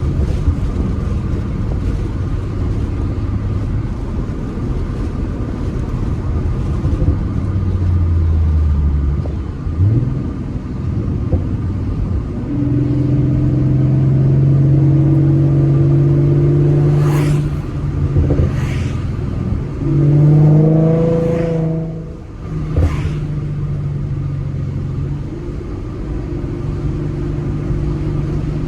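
2014 Ford Mustang's 3.7-litre V6 through a Roush axle-back exhaust and BBK shorty headers, driving. The exhaust note rises and falls several times as it accelerates and eases off, and a handful of short sharp pops come in the second half.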